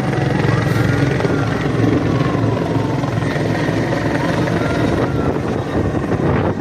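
Helicopter running overhead: a steady, loud drone of engine and rotor.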